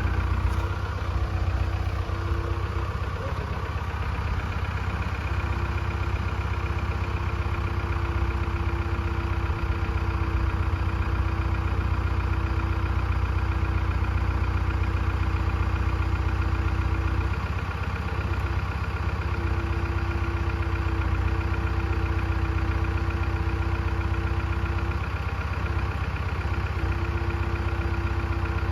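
An engine running steadily at idle: a constant low hum, with a whine that drops out briefly a few times.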